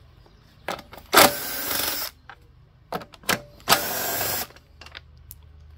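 Cordless power driver spinning in two short runs, each just under a second, backing out the 5/16 in shoulder bolts that hold the engine shroud, with a few light clicks of the socket and bolts between.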